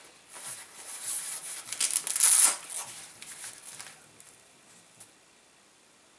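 A small nylon first-aid-kit pouch being handled and opened: a run of crinkling, rasping rustles, loudest about two seconds in.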